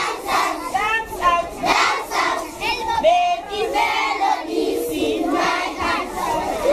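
A large group of young schoolchildren singing loudly together.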